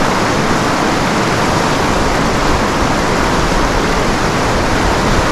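Fast, shallow river water rushing and splashing over rocks in a riffle close by, a steady loud wash.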